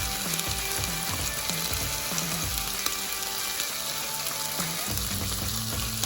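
Chopped potatoes, onion and garlic frying in hot olive oil in a pan: a steady, even sizzle and crackle.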